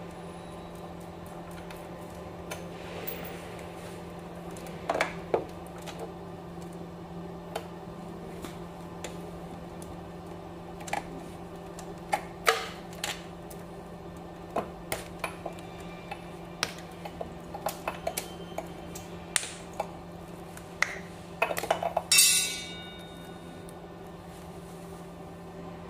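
Scattered clicks and light metallic clinks of e-bike wiring connectors and the aluminium-cased motor controller being handled. Near the end a louder, briefly ringing clatter comes as the controller box is worked out of the frame. A steady low hum runs underneath.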